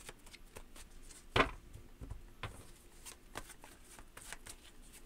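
A deck of tarot cards being shuffled by hand: a string of small, irregular ticks and slides of card against card, with one louder snap about one and a half seconds in.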